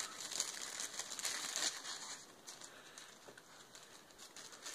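Clear plastic zip-lock bag crinkling as it is handled, the rustling fading after about two seconds.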